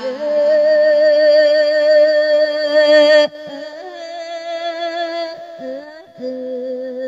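A solo voice chanting a sung Thai-Isan verse (klon) that invites a dead man's spirit, in long drawn-out notes with a wavering pitch. The voice drops softer about three seconds in and slides between notes near the end.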